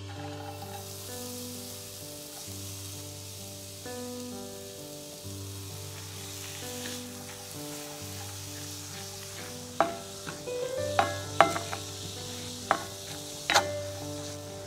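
Diced onion sizzling in hot olive oil in a frying pan, the sizzle starting as the onion hits the oil. In the second half a wooden spatula knocks and scrapes sharply against the pan five or six times as the onion is stirred.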